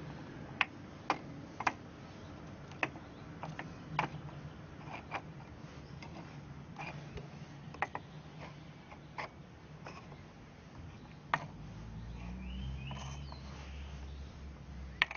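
Hard, irregular clicks and knocks of cast resin orgonite pieces being picked up and set down on wooden deck tiles and against one another, about a dozen in all.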